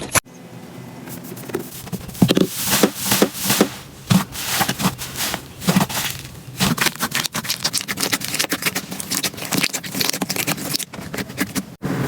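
Slime being squished and worked by hand, with dense irregular crackling and popping clicks. The sound breaks off sharply just after the start and again near the end.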